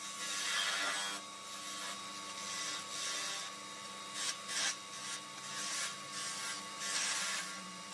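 A wooden blank being cut or scraped with a tool, irregular rasping surges of hiss that swell and fade, over a faint steady machine whine.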